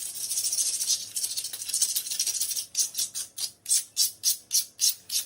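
Razor blade scraping old caulking off the floor: a continuous scrape, then short back-and-forth strokes about four a second.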